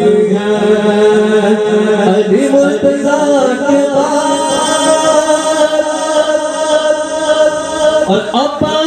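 A man singing devotional Urdu verse (a manqabat) into a microphone, stretching the words into long held notes that waver and slide between pitches, with quicker turns near the end.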